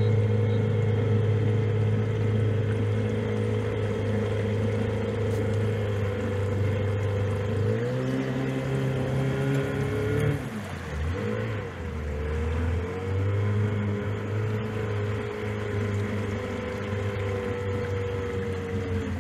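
Small outboard boat motor running steadily while under way. About eight seconds in its pitch rises. A couple of seconds later it drops back sharply and wavers, then it settles to a steady run again.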